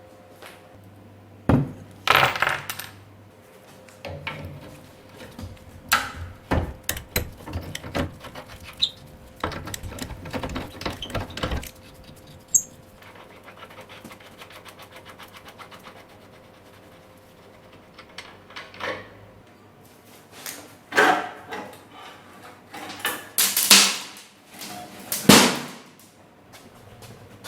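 Metal parts and hand tools clinking and knocking during the dismantling of a 1978 Honda ATC 90, with irregular sharp knocks, a rapid run of clicks about ten seconds in, and the loudest knocks near the end.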